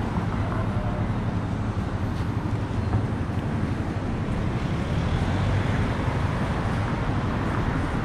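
Steady vehicle noise: a low rumble under an even hiss, with no distinct events.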